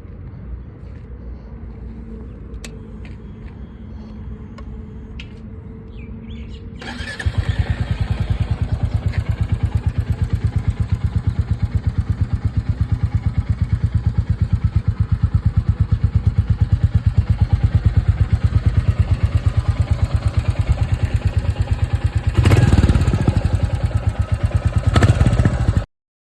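Royal Enfield Classic 350's single-cylinder engine starting on the electric start about seven seconds in, then idling with an even, rapid exhaust thump. It is revved briefly twice near the end, growing louder each time, and the sound cuts off abruptly. Before it fires there is only a low steady hum with a few faint clicks.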